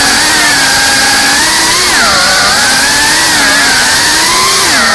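Brushless motors and ducted propellers of a GEPRC Cinelog 35 cinewhoop drone whining in flight over a loud hiss, the pitch climbing and dipping with the throttle and dropping sharply near the end.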